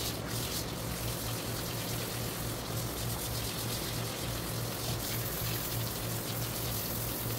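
Water spraying steadily from a hand-held shower head onto a wet dog's coat and the tiled floor, a continuous hiss, with a low steady hum underneath.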